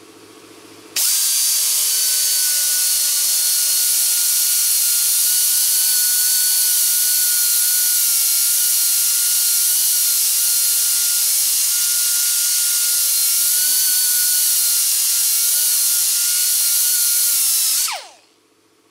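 Die grinder with a small abrasive disc running against the edge of a steel lawn mower blade, sharpening it: a steady high-pitched whine with a hiss of grinding, starting suddenly about a second in and winding down with falling pitch near the end.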